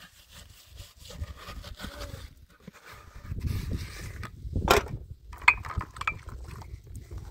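Hands rubbing and handling a plastic bucket over a metal tray: irregular clicks, scrapes and knocks, with one sharper knock near five seconds in and a few brief metallic clicks just after.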